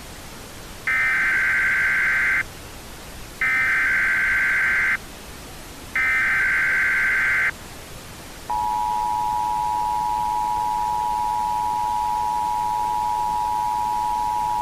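Emergency Alert System SAME header: three bursts of warbling digital data tones, each about a second and a half long, with a short gap between them. About eight and a half seconds in comes the EAS two-tone attention signal, a steady dual-pitched tone that holds to the end. A steady hiss lies underneath throughout.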